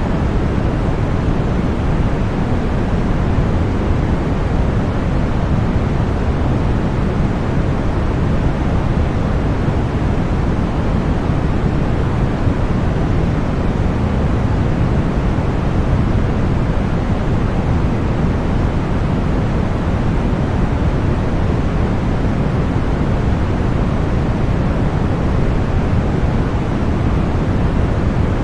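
Steady synthetic white noise: a constant, even rushing hiss, heavier in the low end, that never changes.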